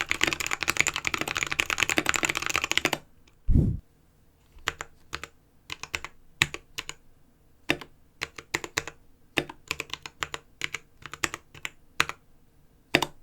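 Fast typing on a modded Anne Pro 2 mechanical keyboard with lubed Halo Clear switches, a steel plate, an aluminium case and XDA PBT keycaps, typed without a desk mat. The typing stops abruptly about three seconds in, followed by a dull low thump and then scattered single key presses.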